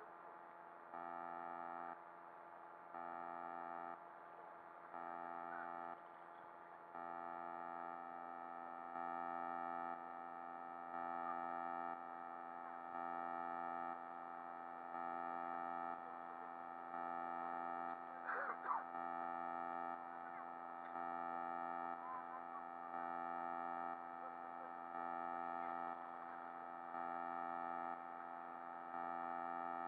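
Background music: a steady synthesizer chord that pulses louder and softer about once a second, with a brief sharper sound about eighteen seconds in.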